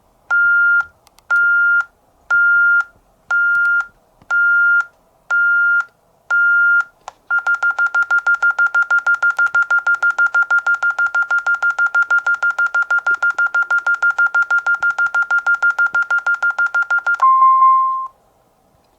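Alarm system keypad sounder beeping through the exit delay after the system is armed: evenly spaced beeps a little over one a second, then about seven seconds in a fast string of short beeps for about ten seconds, and near the end one lower beep before it stops.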